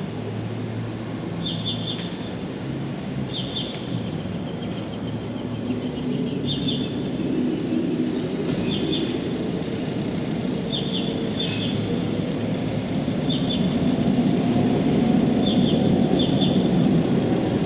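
Small bird calling in short, high chirps that drop in pitch, two or three at a time every second or two, over a loud steady low rumble that grows louder in the second half.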